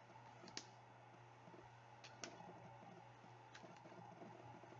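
Near silence: quiet room tone with a few faint clicks, the first about half a second in and another about two seconds in.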